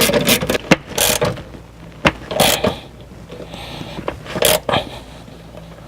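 Ratchet wrench clicking as a 10 mm bolt is tightened: a fast run of clicks for about the first second, then a few separate clicks and knocks.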